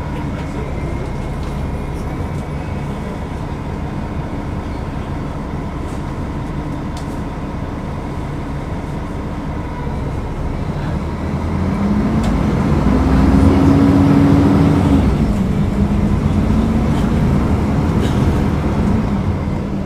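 Mercedes-Benz O500UDA bus engine running steadily, then from about halfway through it gets louder. Its pitch climbs, drops back and climbs again, as when the bus accelerates.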